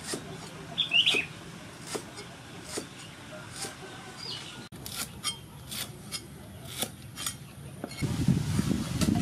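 Steel cleaver slicing lemongrass stalk on a wooden chopping board: sharp knocks of the blade striking the board, about one a second, then quicker. A bird calls briefly about a second in, and near the end a louder, rougher scraping as the cut lemongrass is gathered with the blade.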